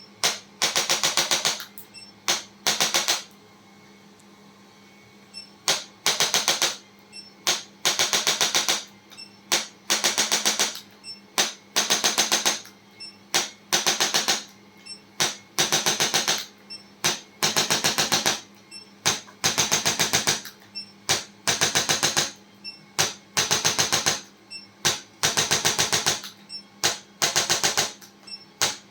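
Handheld electric chiropractic adjusting instrument firing short bursts of rapid taps, roughly one burst a second, with a pause of a couple of seconds near the start.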